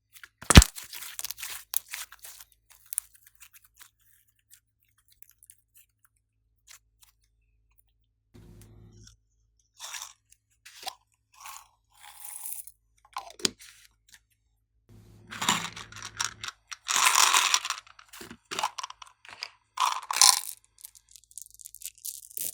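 Slime being handled and mixed: a sharp snap about half a second in followed by crackling, then repeated bursts of crunchy crackling and popping in the second half.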